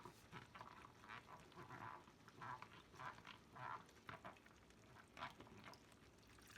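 Faint, irregular blips and plops from a thickening, arrowroot-thickened sauce bubbling in a wok, about two a second.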